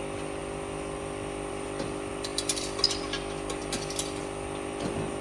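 Something loose rattling inside an engine oil sump: a cluster of light clicks and taps about two to four seconds in, over a steady machine hum. The loose part is thought to be the little metal rod off the spring of the broken guide tensioner.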